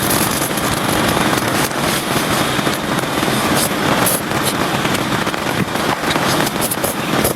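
Heavy rain falling: a steady dense hiss full of fine crackling patter.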